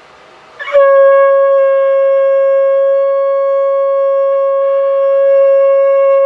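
Conch shell (shankh) blown in one long, loud, steady note, starting about a second in after a breathy rush of air.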